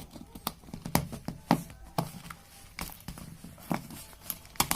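Hands handling and pulling open a taped cardboard parcel: irregular sharp taps and knocks of cardboard.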